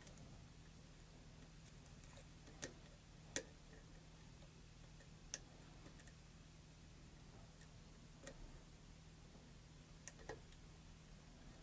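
Near silence broken by about half a dozen faint, sharp clicks of a lock pick working the pins inside a Schlag pin-tumbler lock cylinder, spaced irregularly, over a faint steady low hum.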